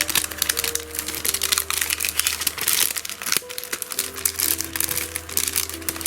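Crinkling and rustling of a plastic packet as it is handled and opened, a rapid crackle throughout. Soft background music of slow held notes plays underneath.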